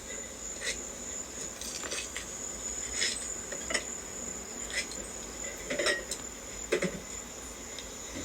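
Steady high-pitched insect chorus, with short light clicks or clinks about once a second.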